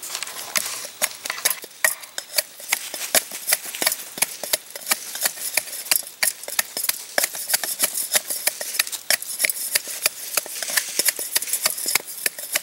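A wooden stick pounding and grinding roasted acorn pieces in a metal canteen cup: quick, uneven knocks and crunches, several a second.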